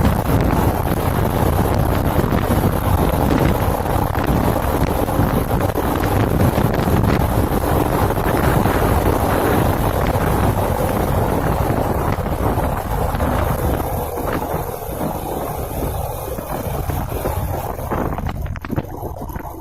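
Wind buffeting the microphone over the run of a 110cc SYM RV1-2 motorcycle under way. The rush is steady and loud, then eases off in the last few seconds, falling away sharply near the end as the bike slows.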